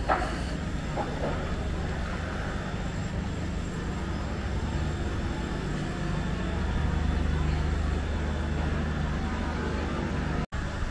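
Town-centre street ambience: a steady low rumble and hum, with a brief snatch of a passing voice at the start. The sound cuts out for an instant near the end.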